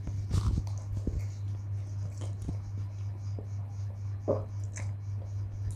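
Close-up eating sounds of fried instant noodles: chewing, short clicks, and a slurp of noodles about four seconds in. A steady low hum runs underneath.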